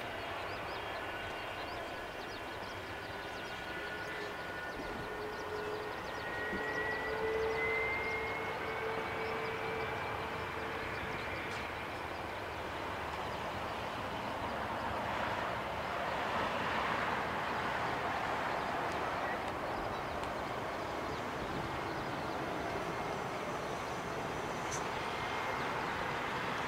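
Boeing 747-400 freighter's four jet engines whining at taxi power as it turns onto the runway, with a tone that rises in pitch about six to eleven seconds in and a broader rush of engine noise around the middle.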